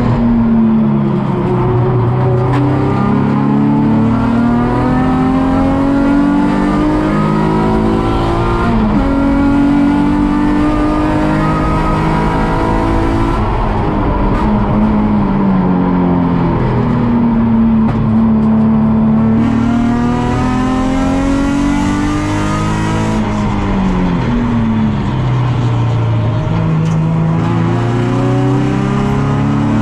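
Nissan 350Z's 3.5-litre V6 at racing pace, heard from on board: the engine note climbs hard through the revs, drops back sharply at gear changes and braking, and climbs again, over and over.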